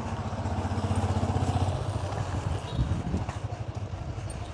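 Motorbike engine passing nearby, with a low pulsing note that grows louder for about a second and a half and then fades away.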